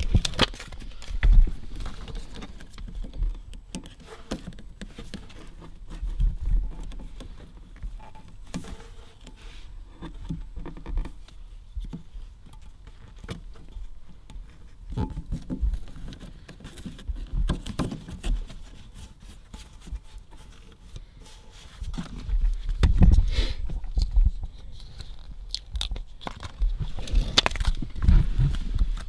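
Dynamat sound-deadening sheets being peeled, placed and pressed into a car's centre tunnel: irregular thumps, scrapes and crackling of foil-backed mat and backing paper, with heavier bumps about a second in, around six seconds, and near the end.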